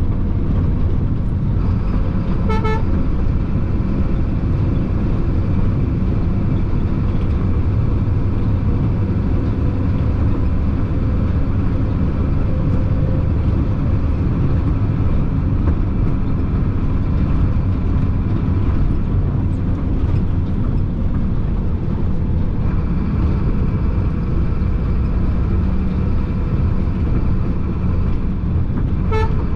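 Chenglong concrete mixer truck driving with a steady engine and road rumble, broken twice by a short horn toot: once a few seconds in and again near the end.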